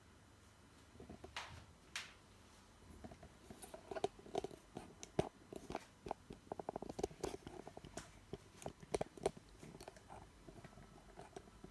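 Handling noise close to the microphone: irregular clicks, crackles and rubbing, densest in the middle, with quicker runs of clicks now and then.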